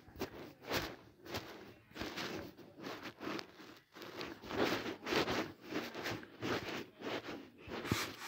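Uneven rustling and soft bumps, a few a second, as toys and clothes in a drawer are handled and the phone is moved about.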